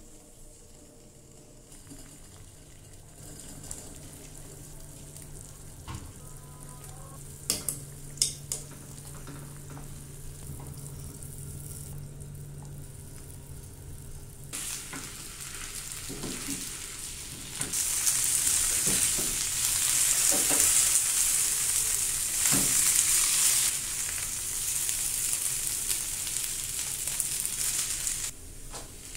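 Glutinous-rice dough pieces sizzling in a hot frying pan of palm-sugar coconut filling while a spatula stirs and knocks against the pan. The sizzle starts about halfway through and is loud until just before the end. The first half is quiet apart from a few sharp clicks.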